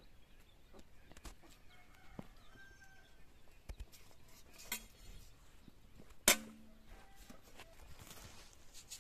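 Chickens clucking faintly. About six seconds in, a sharp clang with a short ring as a steel cooking vessel is set down.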